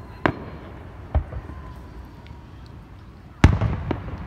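Aerial fireworks bursting: a sharp bang a quarter second in, another about a second in, then the loudest bang near the end, followed by a quick run of smaller pops.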